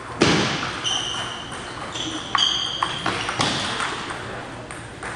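Table tennis rally in a gym: the ball clicks sharply off the paddles and table several times, with short high squeaks of shoes on the hardwood floor between the strokes.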